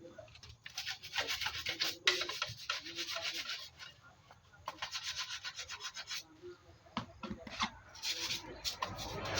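Rapid rubbing strokes, several a second, in spells of a second or two with short pauses between them.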